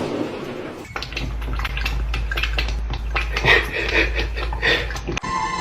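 Irregular clattering and light knocks over a low rumble, with music cutting in near the end.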